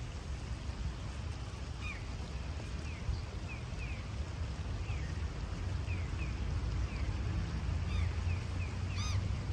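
Wild birds calling by a river, with many short falling chirps throughout and two louder calls near the end, over a steady low rumble.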